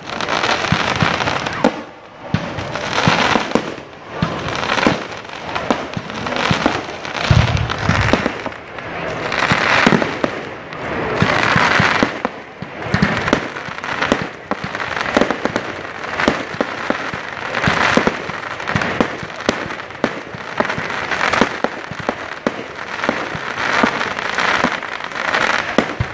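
Fireworks going off in a dense, unbroken run of crackles and sharp pops, with swells of hissing noise rising and falling every second or two. A deeper thud comes about seven seconds in.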